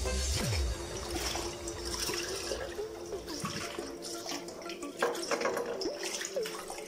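Water running from a kitchen tap into a basin of soapy water as a baby bottle is rinsed under it, with splashing and a single knock about five seconds in.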